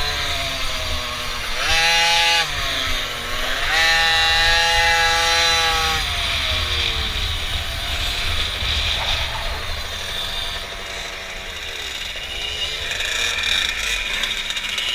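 Small mini bike engine revving up and easing off, twice strongly in the first six seconds and more faintly after, with wind rumbling on the helmet-camera microphone.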